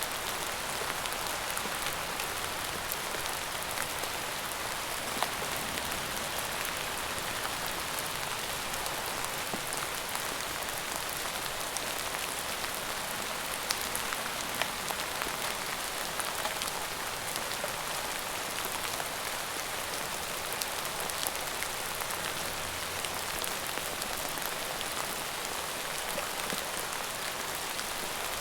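Steady rain falling on a surface, an even hiss with many small drops pattering through it.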